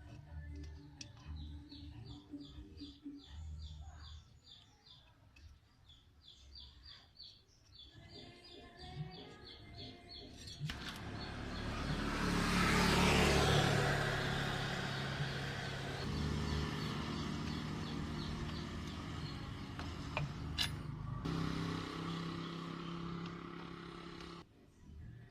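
Birds chirping over faint background noise, then a motor vehicle's engine rises loud about eleven seconds in, peaks a couple of seconds later and keeps running steadily until just before the end.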